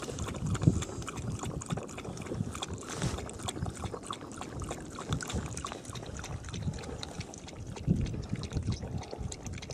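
A dog lapping up cold water, a quick irregular run of small wet splashes and tongue clicks.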